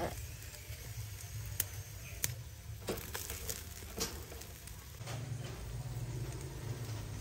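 Chicken feet grilling over charcoal on a wire grill: scattered crackles and sharp clicks as wooden chopsticks knock against the grill and turn the feet, over a steady low rumble that grows louder about five seconds in.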